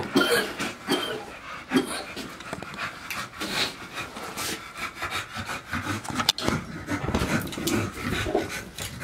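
An American Bully dog panting, with scuffing and shuffling as it moves about on a concrete floor strewn with wood shavings.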